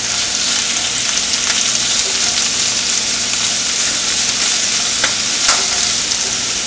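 Torn Swiss chard leaves sizzling in hot coconut oil in a frying pan, a steady hiss, with a couple of faint clicks about five seconds in.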